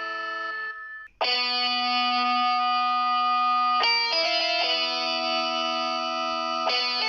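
Instrumental music of held, effect-laden chords that change about every three seconds. The sound dips almost to silence for a moment about a second in.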